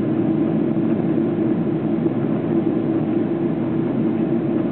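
Steady cabin roar of a Boeing 777-200LR climbing: its GE90 turbofans at climb thrust and the rush of air past the fuselage, heard from inside the cabin as an even, unbroken drone.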